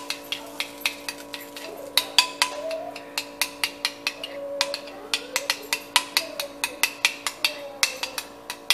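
A spoon clinking quickly and evenly against the sides of a ceramic bowl, about four or five clinks a second, as tomato paste is stirred into water to thin it. A steady hum runs underneath.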